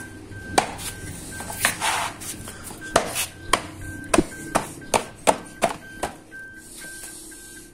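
Car-cleaning work sounds: irregular sharp knocks and clicks with a few short hissing bursts, over a faint beep repeating about twice a second.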